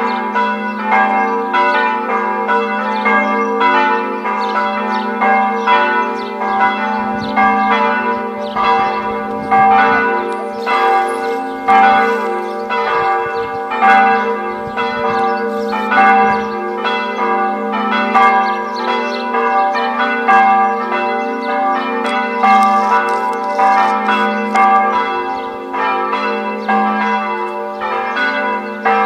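Several church bells ringing together in a full peal, their strokes overlapping in a steady stream over the held hum of the deepest bell.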